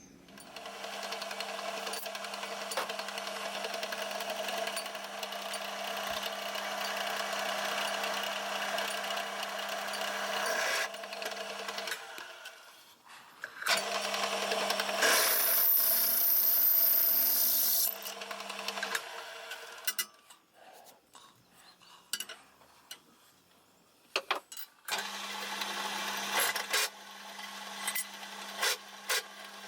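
An electric power tool grinding or sanding steel, running in three bursts with a steady motor hum under a rasping grind. A higher whine joins in during the second burst. Between bursts come a few clicks and knocks of handling.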